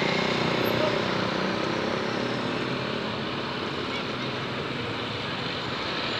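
Roadside traffic noise: a passing motor vehicle's engine hum fades over the first second or so, leaving a steady traffic rumble.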